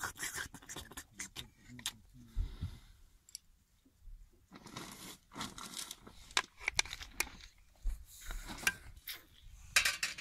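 Scattered clicks, clinks and scrapes of steel plates and dishes being handled, with a few short rustling bursts.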